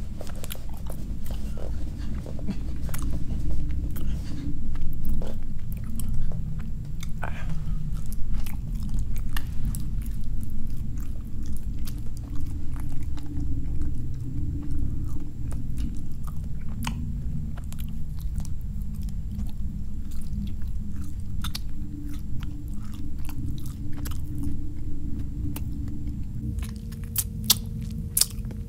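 Chewing and crunching, as of something eating, with many irregular sharp clicks over a continuous low rumble.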